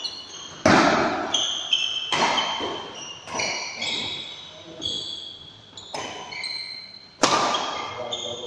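Badminton rackets smacking the shuttlecock in a fast doubles rally, sharp hits about once a second, the two hardest about a second in and near the end ringing in the hall. Short high squeaks between the hits, from court shoes on the floor.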